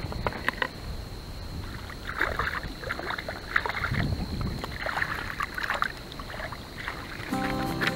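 Hooked creek chub thrashing and splashing at the water's surface in several short bursts, with a few sharp clicks in the first second. Music comes in near the end.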